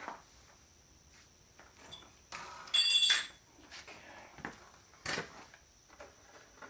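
Hard electronic scrap being handled on a work surface: a few light knocks and clicks, and one louder clattering clink with a short metallic ring near the middle.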